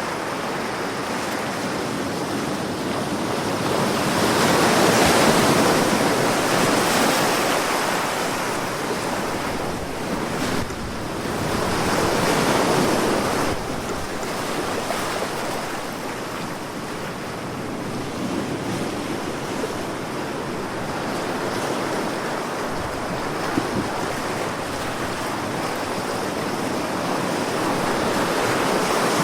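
Sea waves breaking and washing ashore in slow swells, with wind on the microphone.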